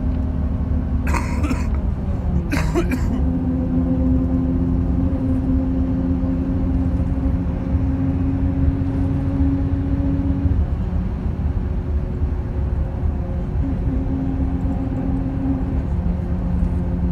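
Engine hum and road rumble heard from inside a moving vehicle on a winding road. The engine note drops and shifts about two and a half seconds in, then fades and returns later. Two short hissing noises come near the start, about a second apart.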